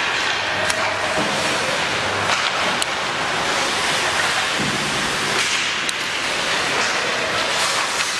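Ice hockey rink ambience during play: a steady noise of skating and the arena, with a few short sharp clicks.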